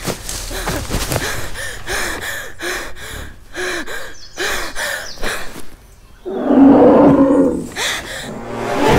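A young man panting hard, with quick gasping breaths about twice a second. About six seconds in, a loud, low, rough voice-like sound lasting about a second stands out above the breathing.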